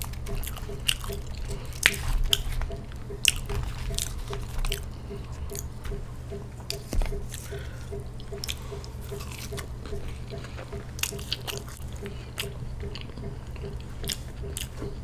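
Close-miked eating: chewing and biting with wet mouth clicks and crunches at irregular moments. Underneath runs a steady low hum from an air conditioner.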